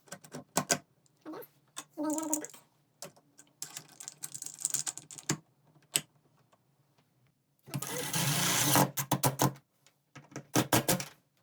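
Metal clicks and rattles of a privacy door knob set's latch and knob parts being handled and fitted into a door, with a small motor whirring for about a second and a half about eight seconds in.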